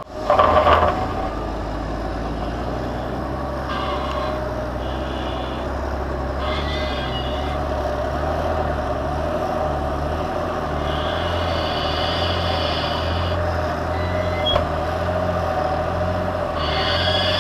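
Big Fendt Vario tractor engines running under load while pushing maize silage, a steady drone with a higher whine that comes and goes. A brief louder surge about half a second in.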